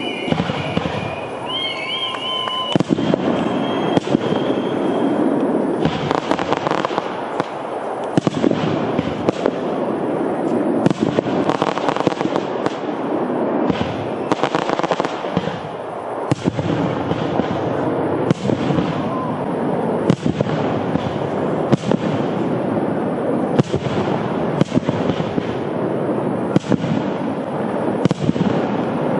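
Fireworks display: aerial shells bursting in a continuous run of bangs, roughly one or two a second, over a steady crackling rumble. A few wavering whistles sound near the start.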